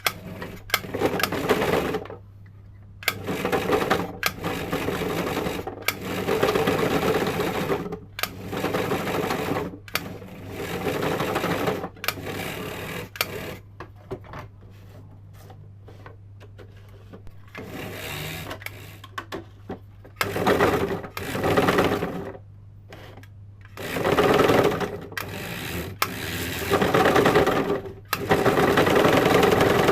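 Sewing-machine motor spinning a homemade tin-can onion slicer, switched on in repeated bursts of about one to three seconds with short pauses between.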